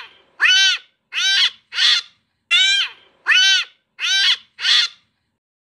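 Young kitten meowing over and over: about seven short, high-pitched meows in quick succession, each rising then falling in pitch.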